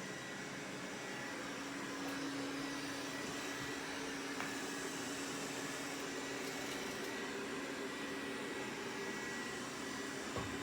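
Roborock S6 Pure robot vacuum running: a steady motor hum with a thin, higher whine over an even hiss of suction, and a light tap near the end.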